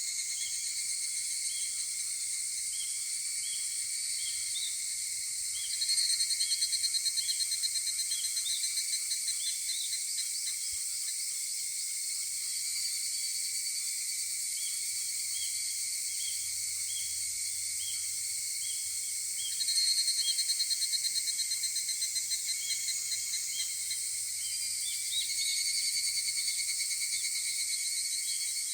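Higurashi cicadas (Tanna japonensis) calling: two loud trills of rapid pulses, about 6 and 20 seconds in, each starting strong and fading away over several seconds, with a weaker one near the end. Under them runs a steady high insect chorus with short chirps repeating.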